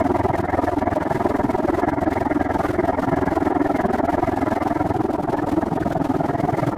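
Steady rushing noise of a bicycle in motion: wind and rolling noise on the camera's microphone, even and unbroken throughout.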